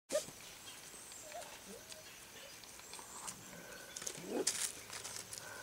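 Four-week-old golden retriever puppies whimpering, short thin cries now and then with a louder rising-and-falling whine about four seconds in, over light scuffing and crunching of small paws on gravel.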